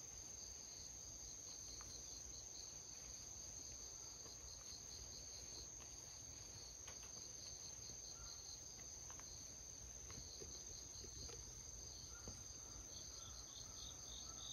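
Faint insect chorus: a steady high-pitched drone with a quick, regularly pulsing chirp running over it.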